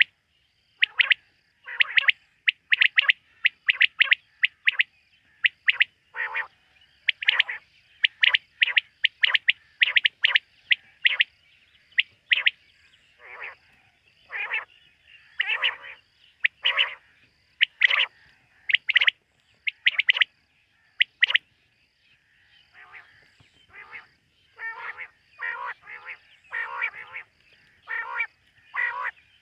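Quail calling over and over, in quick runs of short sharp notes with brief pauses between the runs.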